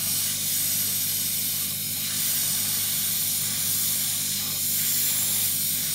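Methyl flushing fluid and air hissing steadily out of a refrigerator condenser's outlet pipe, driven at strong pressure by a running freezer compressor, with a steady low hum underneath. This is the flush that carries moisture out of the condenser before the filter-drier is fitted.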